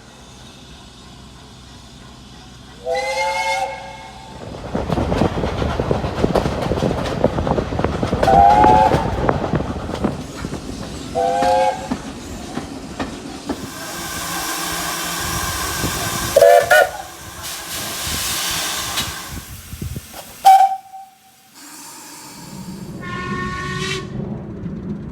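Steam locomotive whistles: about six short blasts, each sounding several notes at once. They play over the rumble of a train running past, and near the middle there is a loud hiss of escaping steam.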